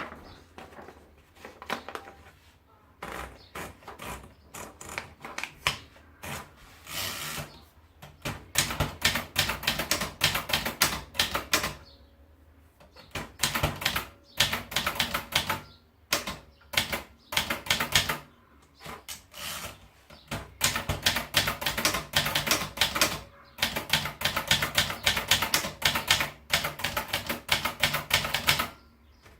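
Brother De Luxe typewriter being typed on: rapid runs of sharp key strikes separated by short pauses, with lighter, sparser strokes during the first several seconds.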